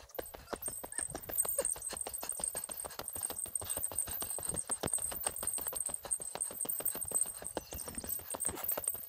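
Hiker's footsteps on a mountain road: a quick, even run of crunching steps, several a second.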